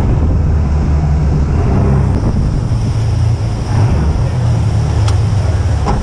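Inshore rigid inflatable lifeboat running at speed through rough surf: a steady low engine rumble mixed with wind buffeting the microphone and rushing water, with a sharp knock about five seconds in.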